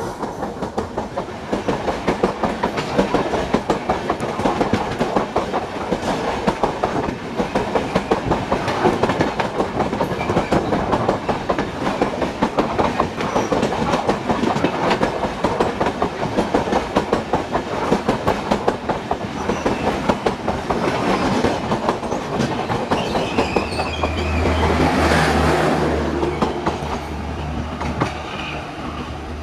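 Hazrat Nizamuddin–Ernakulam Duronto Express coaches passing close by, their wheels clattering rapidly over the rail joints. Near the end a low steady hum comes in as the last car goes past.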